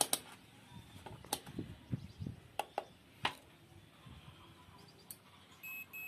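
Scattered clicks and taps from handling a multimeter and its probes, then near the end a steady high-pitched multimeter continuity beep starts: zero resistance between the fan motor's ground wire and its metal casing, so the ground is connected.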